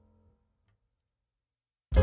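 A faint tail of background music dies away at the start, then about a second and a half of silence, then loud instrumental music with a strong bass line starts abruptly near the end.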